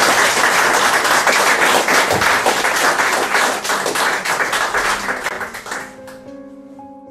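A small audience applauding, the clapping thinning and fading out about six seconds in. Soft piano music begins just as the applause dies away.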